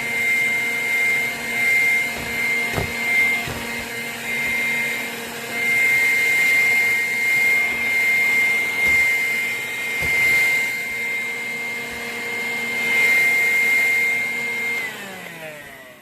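Vacuum cleaner running with a steady high whine, then switched off about fifteen seconds in, its motor winding down.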